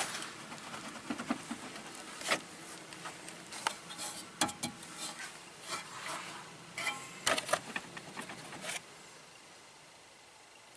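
Irregular clicks, clinks and knocks of tools and metal parts being handled during engine overhaul work, stopping about nine seconds in.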